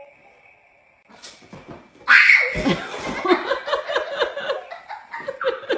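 Laughter starting suddenly about two seconds in and going on in short repeated bursts, after a faint steady tone.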